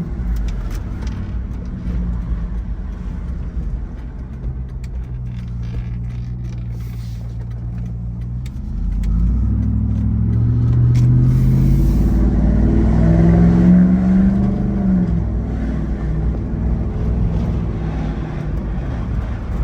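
Car engine with a loud exhaust running steadily, then the revs climb for several seconds from about 9 s in, peak, and drop back about 15 s in to a steady lower note.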